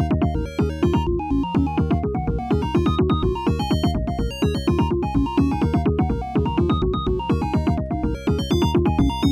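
Electronic music from the PILOT software synthesizer on its default sounds, sequenced live by an ORCA program: a fast, dense stream of short synthesized notes in several voices over repeating low bass notes.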